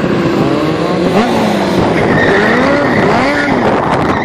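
Stunt motorcycle engine revving up and down several times, its pitch rising and falling with each blip of the throttle.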